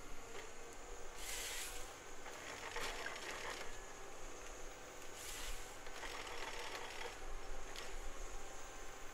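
Forestry machine working: a steady low engine hum, broken several times by short bursts of hissing and crackling.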